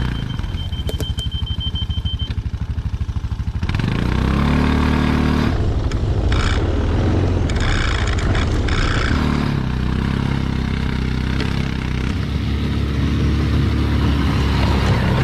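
Kuba Alterra 350 4x4 ATV's water-cooled engine running as it is ridden, its pitch rising and falling with the throttle. It is quieter at first, then louder and closer from about four seconds in.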